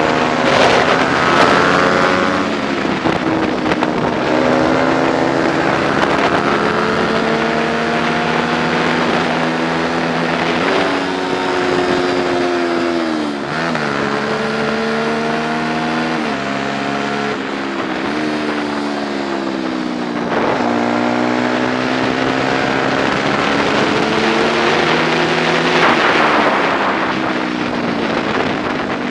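Onboard sound of a 125 cc four-stroke prototype racing motorcycle engine at high revs. The pitch climbs and steps with gear changes, dips sharply about halfway through, and climbs again.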